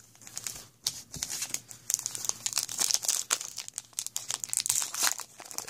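Wrapper of a 2013 Topps Magic football card pack crinkling as it is handled and torn open: a continuous run of small crackles.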